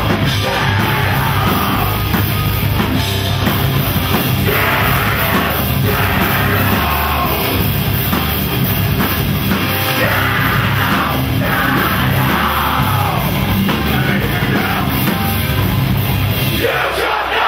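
Live post-hardcore band playing loud, heavy music: distorted guitars, pounding drum kit and vocals over a packed crowd. The music breaks off briefly near the end.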